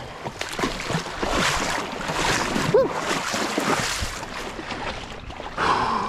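Rushing wind on the microphone over a flowing river, swelling and easing as the angler moves along the bank, with a few soft knocks. Near the end, a short whoosh as a spinning rod casts a lure.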